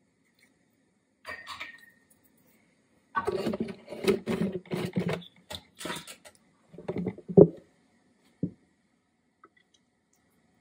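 Kitchen handling noises: a short rustle, then about three seconds of rapid clattering and rattling, then two knocks, the first of them the loudest sound here.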